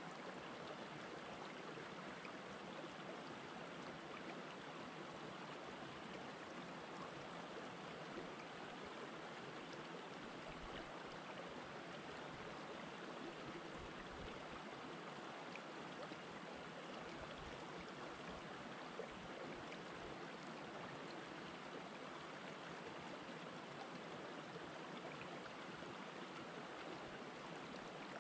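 Shallow rocky stream flowing among boulders: a steady, soft rush and trickle of water.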